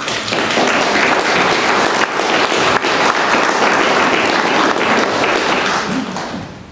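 Audience applauding: a dense, steady round of clapping that dies away near the end.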